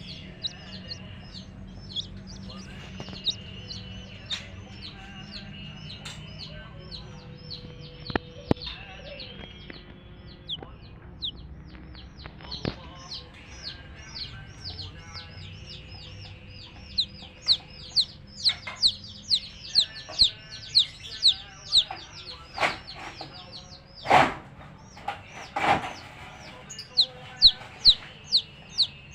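Baby chicks peeping: a constant stream of short, high, downward-falling peeps from several chicks, growing louder and more spaced in the second half. Two louder, harsher sounds stand out a little after the middle.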